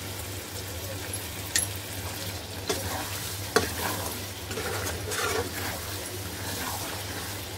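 A spatula stirring a thick, nearly finished mutton kaleji curry in a pan over the heat, with a steady sizzle. A few sharp knocks come from the spatula striking the pan.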